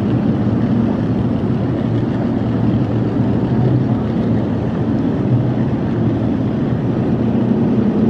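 Bass boat's outboard motor running steadily, a constant low hum under a broad rushing noise.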